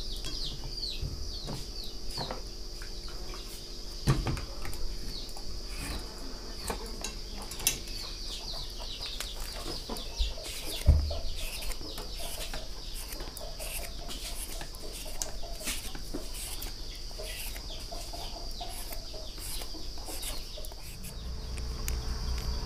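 Raw green mango being shaved into thin shreds with a knife over a steel plate, in repeated short scraping strokes. Chickens cluck in the background over a steady insect drone, and a single dull knock comes about eleven seconds in.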